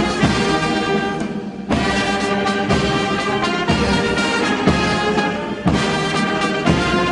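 Brass band music, sustained brass notes over a steady low drum beat about once a second.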